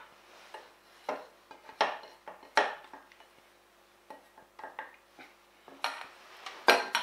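Scattered clinks and knocks of a stainless-steel mixing bowl, wire whisk and saucepan, about seven spread through, as crème pâtissière mixture is scraped from the bowl back into the pan with a silicone spatula.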